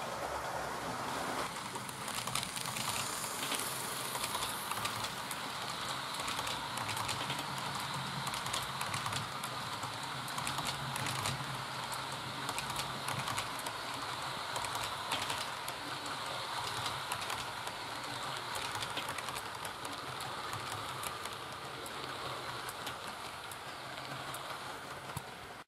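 Model train coaches rolling past on the track: a steady running noise with many quick irregular clicks from the wheels over the rail joints, over a low motor hum.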